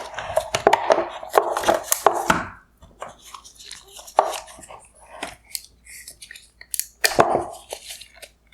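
Hard plastic headlight parts clicking and clattering as they are handled during disassembly. A dense run of knocks comes in the first two and a half seconds, then scattered clicks, and another brief clatter about seven seconds in.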